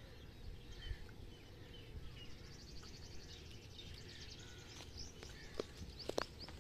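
Faint outdoor ambience with scattered bird chirps and a faint high trill that joins about two seconds in. Near the end come a few short crackles and rustles of dry leaves and brush.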